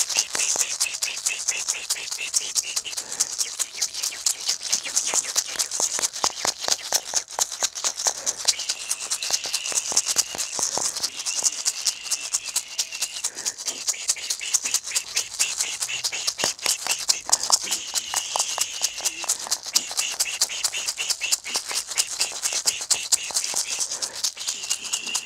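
A pair of red hand maracas (sonajitas) shaken rapidly and without a break, making a dense, even rattle.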